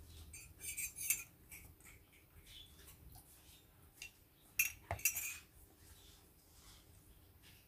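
Cutlery and dishes clinking in a kitchen: a quick run of light clinks about a second in, then a louder pair of clinks near the middle.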